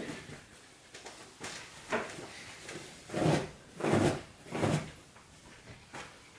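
Clothes rustling with soft thuds on a bed as a Samoyed roots through a pile of laundry, three quick bursts a few seconds in.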